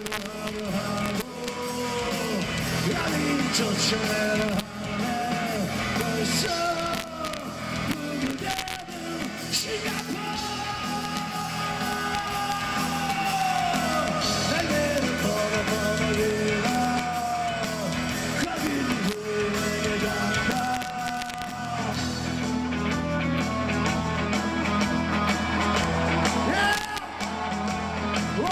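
Rock band playing live: a lead singer's vocals over electric guitar, bass guitar and drums.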